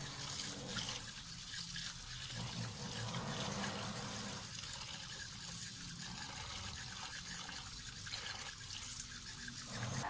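Tap water running and splashing into a plastic basin while hands swish and rinse moringa leaves in it.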